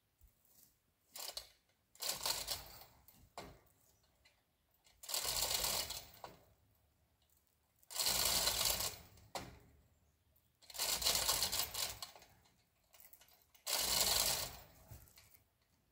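A 2-ton chain fall being worked by hand, taking up tension on the strap pulling a leaning tree: five bursts of rattling chain and clicking, each about a second long, roughly every three seconds.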